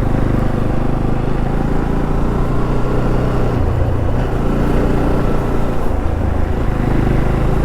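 Motorcycle engine running steadily under way, a continuous low drone with road and wind noise.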